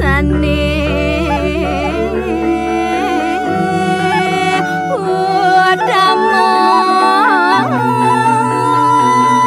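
Background music: a sung melody with sliding, ornamented notes over held bass and keyboard tones.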